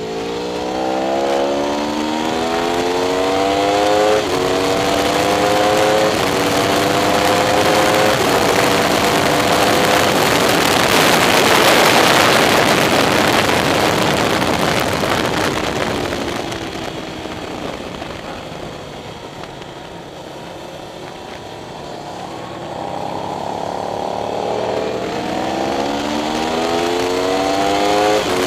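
Aprilia RSV4R's V4 engine accelerating hard through the gears, its pitch climbing and dropping back at each upshift. At top speed a loud wind rush on the helmet-mounted camera covers the engine, which then falls away as the bike slows and climbs through upshifts again near the end.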